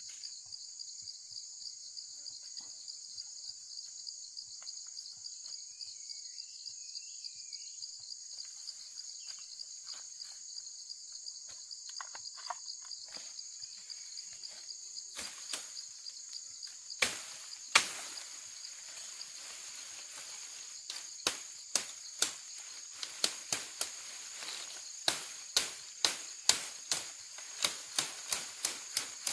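Steady high-pitched insect chorus. About halfway through, a run of sharp knocks or chops begins, roughly two a second, with a couple of loud strikes just past the middle.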